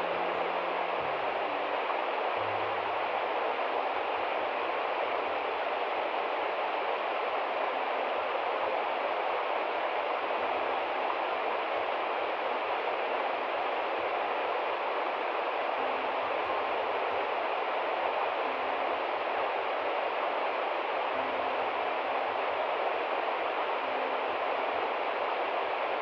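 Steady rush of a shallow river running over rocks below a cascading waterfall, an even, unbroken roar of white water.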